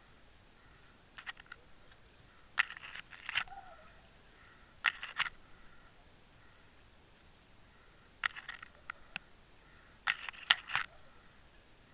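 Bursts of sharp clicks and knocks heard underwater, in five clusters, the loudest near the end.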